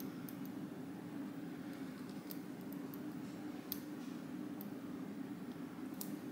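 Steady low hum of room noise with a few faint, light clicks and ticks from small UV DTF decals and their backing sheets being peeled and handled by hand.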